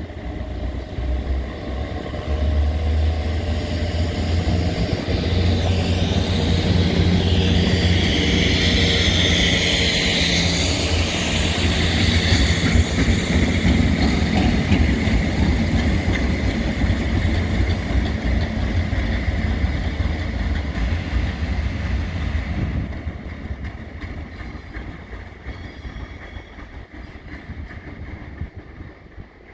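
Railhead treatment train hauled by two Class 73 locomotives passing at speed: a steady low drone from the locomotives, rumble of wheels on rail, and a loud hiss from the high-pressure water jets blasting the railhead. The sound fades as the train moves away, about 22 seconds in.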